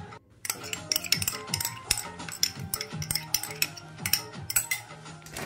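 Glass bowls clinking and knocking together while thick syrup is emptied from a small glass bowl into a larger glass mixing bowl: many quick irregular clinks, with a louder knock at the end. Background music underneath.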